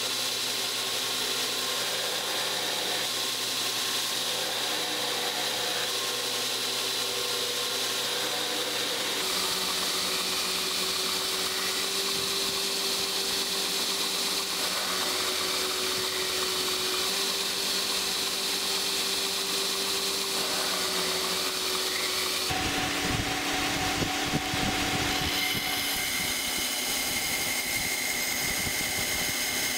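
Belt grinder running while a hardened San-Mai Damascus steel knife blade is ground against the belt: a steady grinding hiss with a high whine. The pitch of the whine shifts abruptly twice, about a third of the way in and again about three-quarters through.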